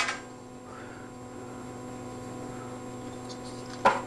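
Steady electrical mains hum, then a single sharp metallic knock near the end as the metal microphone boom arm is handled.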